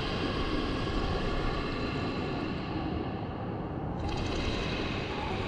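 Steady, dense rumbling noise from a sound-effects bed. The high hiss fades out about two and a half seconds in and cuts back in sharply about four seconds in.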